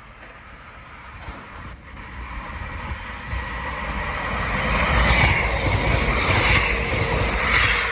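A train approaching and passing, its rumble and rail noise growing steadily louder to a peak in the last few seconds.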